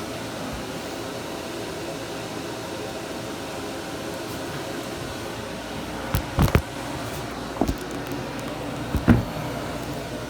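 Steady mechanical hum, with a few sharp clunks and knocks from about six seconds in as the boat's engine room hatch is worked open.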